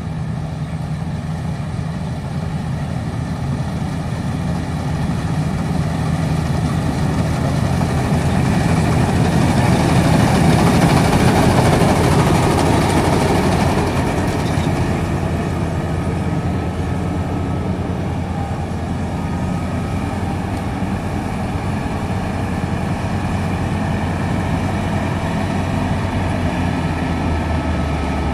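Maxxi Bimo 102L rice combine harvester running while it cuts standing rice: a steady heavy engine hum with the rushing of the cutter and threshing gear. It grows louder as the machine comes close, loudest about halfway through, then holds steady.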